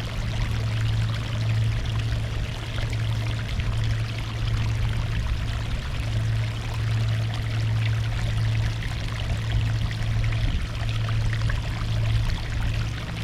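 Sea water washing and splashing over a rocky shore: a continuous rush with fine crackling splashes and no pauses. A steady low hum runs underneath.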